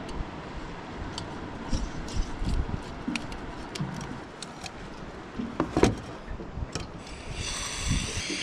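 Irregular small clicks and knocks of cooking gear being handled and set up, then a steady hiss begins near the end.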